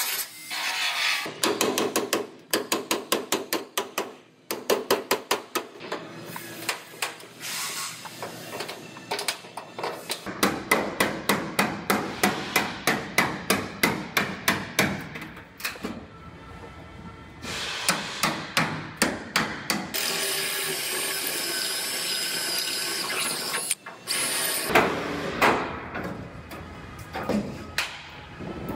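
Rapid hammer blows on sheet-metal truck bodywork, a body hammer working the wheelhouse lip against a dolly, about three to four blows a second in long runs with short breaks. For a few seconds near the end a power tool runs steadily.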